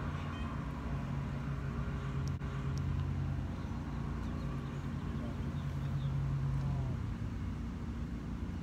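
Steady low hum of road traffic, with one vehicle's engine tone held until about seven seconds in, then fading. A single sharp click about two and a half seconds in.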